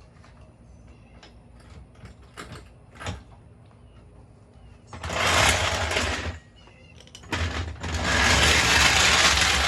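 A few light metallic clicks, then a power wrench rattling loudly in two bursts, about a second long and then several seconds long, working the water pump bolts loose.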